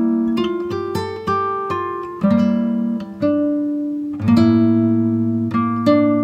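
Background music: an acoustic guitar picking single notes and chords, each note starting sharply and fading, with fuller strums about two seconds in and again near four seconds.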